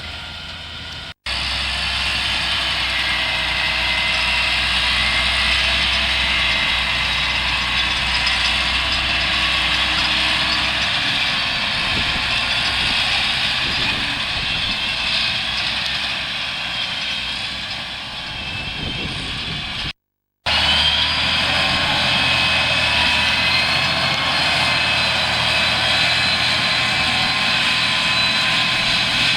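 Large farm machinery working a field: a steady engine drone with a higher whine over it. It is broken by two abrupt cuts, about a second in and about two-thirds of the way through.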